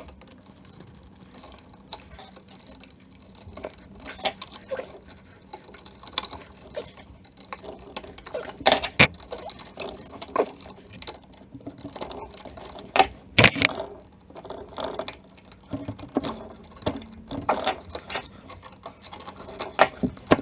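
Irregular clicks, knocks and small metallic rattles of hands working with tools and electrical parts while wiring an outlet, with a few sharper knocks about nine and thirteen seconds in.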